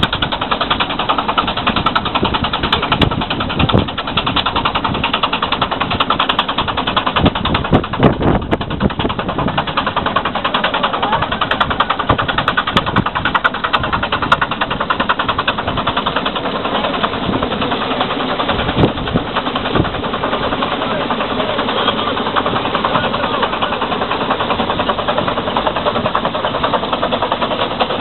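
Steam launch's steam engine running at speed in a race, a fast, even mechanical beat that carries on without a break.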